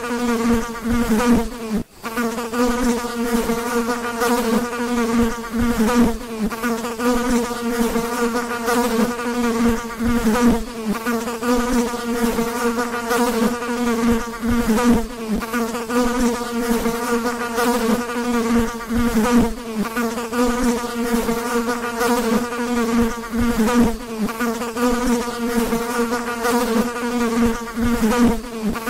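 Fly buzzing in flight: a steady, slightly wavering drone, with a brief break about two seconds in.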